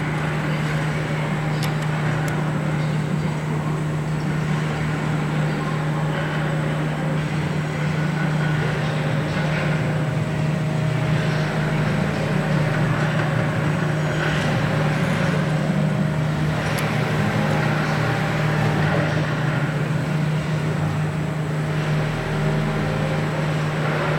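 A steady low machine hum, with faint intermittent creaks from the dry, unlubricated screw threads of a taper-lock bushing as the screws are torqued down with a torque wrench.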